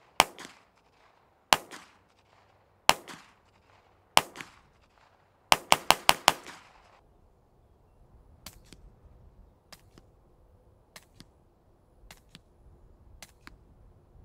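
9mm pistol fired through a CGS Group Kraken 9 suppressor, heard from a distance: four single shots about a second and a half apart, then five in quick succession. In the second half come fainter sharp cracks, mostly in pairs.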